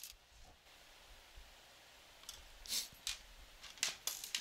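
Small metal hardware clicking and clinking as a caster wheel is fastened to a metal robot chassis with a nut and bolt: a few faint knocks, then a run of sharp clicks in the second half.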